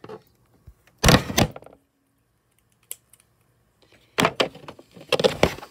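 Handling noise: knocks and rubbing as toys and the recording device are moved about, one short bout about a second in and a longer run of several knocks after about four seconds.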